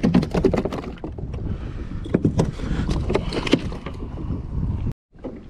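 Wind buffeting the microphone, with scattered sharp clicks and knocks from fishing tackle being handled on a plastic kayak. The sound drops out for a moment near the end.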